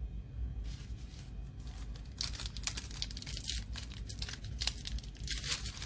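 Foil trading-card pack wrapper crinkling and crackling as it is handled, with dense irregular crackles starting about two seconds in.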